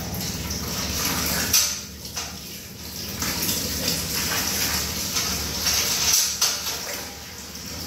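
Anvil Foundry's recirculation pump running, with wort pouring and splashing back into the stainless-steel kettle. Sharp metal clinks come about a second and a half in and again around six seconds as the return hose and fittings are handled.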